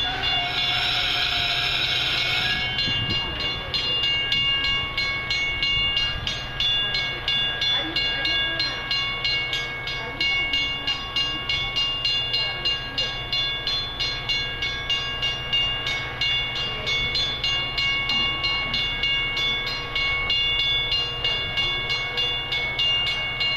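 A railroad bell rings over and over at a fast, even rhythm beside a Metra commuter train. A short hiss of air sounds at the start.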